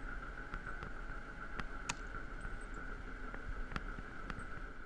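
A Ford 9N tractor converted to a 96-volt electric motor, driving: a steady whine over a low rumble, with scattered sharp clicks and knocks.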